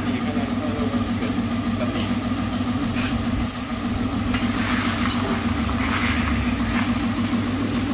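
An engine idling steadily, with some brief hissing about halfway through.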